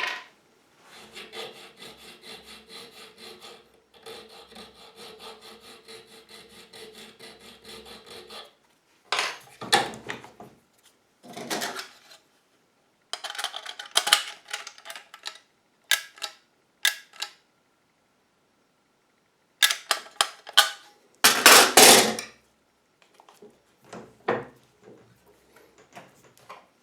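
Hand file rasping on a steel key blank as the lever-lock key's bit is cut down: a run of quick, even strokes, then louder, separate strokes with pauses between.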